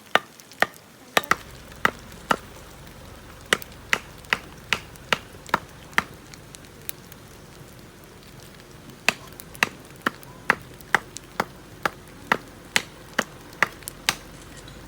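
Sharp wooden knocks about twice a second, pausing for a few seconds in the middle: a knife's spine struck with a wooden baton to split hard firewood along the grain.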